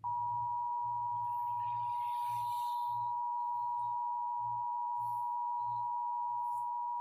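Emergency Alert System attention tone on a cable TV emergency alert: one steady, unbroken high tone that starts abruptly and holds at an even level, heard through the TV's speaker.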